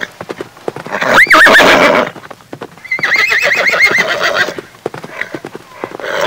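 Horse whinnying twice: a short wavering neigh about a second in and a longer, quavering one about three seconds in, with clicking hoof steps between.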